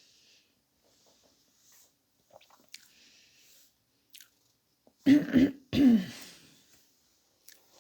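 A woman eating quietly, with faint chewing and mouth sounds. About five seconds in come two short, loud throat sounds in quick succession.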